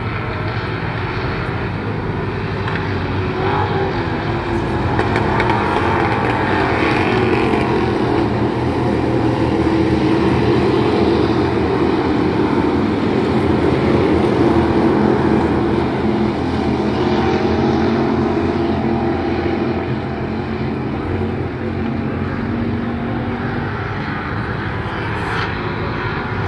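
Several dirt-track race cars running laps together, a continuous engine drone that swells as the pack comes round and passes, loudest in the middle, then eases off.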